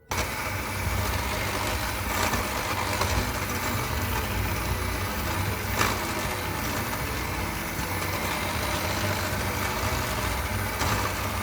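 Electric hand mixer running steadily, creaming butter with sugar in a bowl, with an occasional sharp click.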